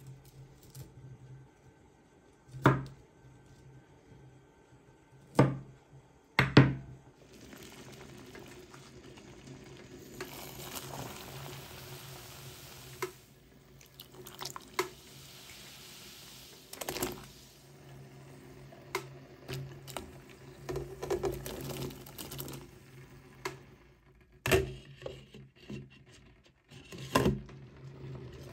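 Kitchen knife chopping cauliflower on a wooden cutting board, three sharp knocks in the first seven seconds. Then water runs and is poured into a stainless steel pot for several seconds, followed by small clatters and two knocks near the end as the pot is handled and its glass lid goes on.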